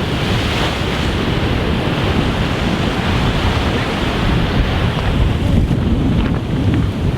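Sea surf washing against shore rocks, with wind buffeting the microphone.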